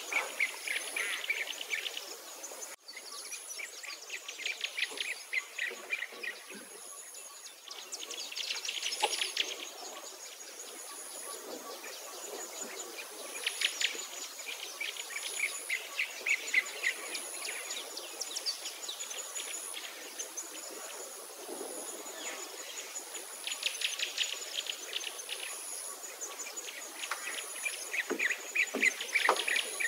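Background birds and insects: bursts of rapid chattering trills every few seconds, over a thin, very high insect note that pulses about every two seconds.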